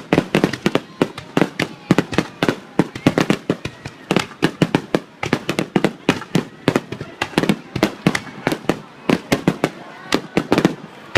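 Aerial fireworks bursting in a rapid, continuous barrage, with sharp bangs several times a second throughout.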